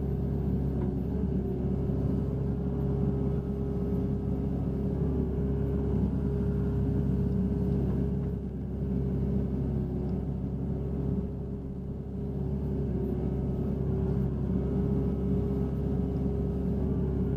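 Hitachi Zaxis 60 USB mini excavator's diesel engine and hydraulics running steadily while the arm and bucket dig, heard from inside the cab. The sound eases off briefly twice about halfway through.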